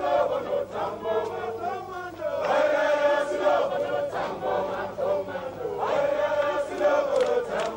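A crowd of many voices singing and chanting together in chorus, holding long notes that rise and fall.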